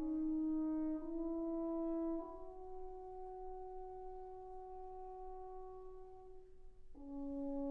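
Background music of slow, sustained horn-like notes. The melody steps upward twice, holds a long note that softens, and drops back to a lower note near the end.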